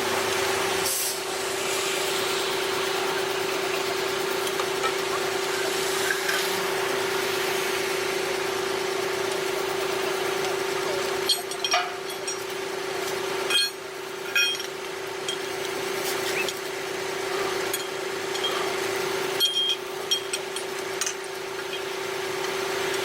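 A heavy machine's engine running steadily with a constant hum, and scattered clicks and knocks in the second half.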